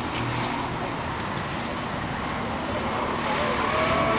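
Rental go-kart engines running on the circuit: a steady mixed drone of several karts, with one higher, rising engine note coming in near the end.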